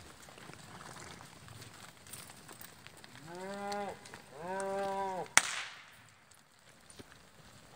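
A cow in a moving herd of cattle mooing twice, two drawn-out calls one right after the other, followed by a single sharp whip crack.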